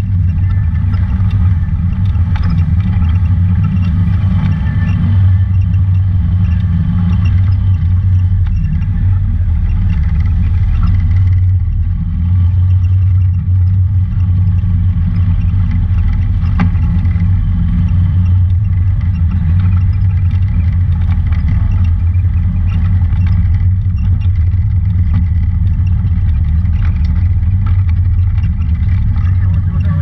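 Honda Talon 1000 side-by-side's parallel-twin engine running steadily with a low drone as it drives along a rough dirt trail, heard from on board the machine.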